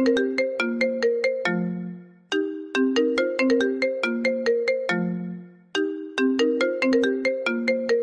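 A phone ringtone playing its short melody on a loop. Each phrase is a quick run of plucked-sounding notes, about eight a second, that ends on a lower held note fading away, and the phrase repeats roughly every three and a half seconds.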